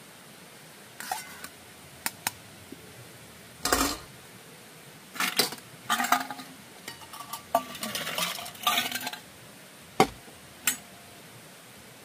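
Camp cookware and cutlery being handled: a scattered series of clinks and clatters, some briefly ringing, with a sharp knock about ten seconds in.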